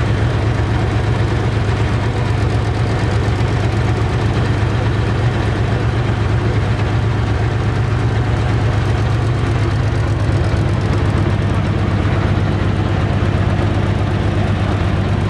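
A BVP-1 infantry fighting vehicle's UTD-20 V6 diesel engine running steadily, heard from inside the hull's troop compartment as a low, even engine note.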